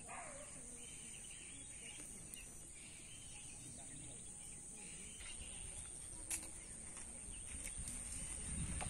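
Quiet rural outdoor ambience: a steady high-pitched insect drone with faint bird chirps and distant voices, and a single click about six seconds in.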